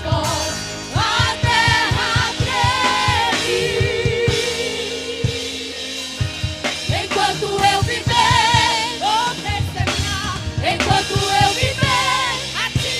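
Live gospel worship music: a vocal group singing with vibrato over a band with drum kit.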